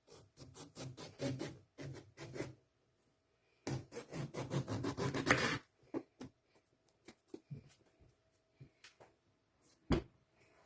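Food preparation on a wooden board: two runs of quick rubbing and scraping strokes, then scattered light taps and a single sharp knock near the end.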